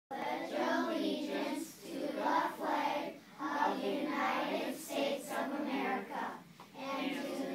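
A class of young children's voices together in unison, in phrases of about a second with short pauses between.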